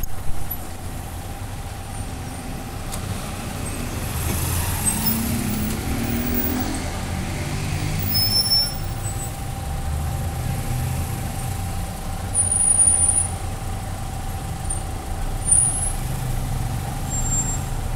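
Street traffic at a signalled intersection: cars and motorcycles idling and moving past with a steady low engine rumble. About five seconds in, one engine rises in pitch as it pulls away.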